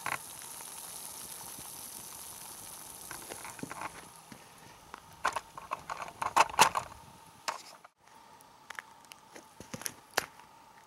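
Twig fire in an Element 2.2 wood-burning camp stove, with a pot of water boiling on top: a steady hiss with scattered crackles and pops, which are loudest about six to seven seconds in. The sound breaks off suddenly about eight seconds in, and a few faint clicks follow.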